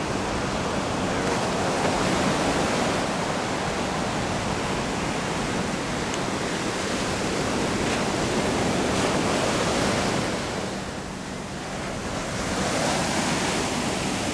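Steady rush of ocean water and small surf right at the microphone, with some wind on the microphone. The rush dips briefly about three-quarters of the way through.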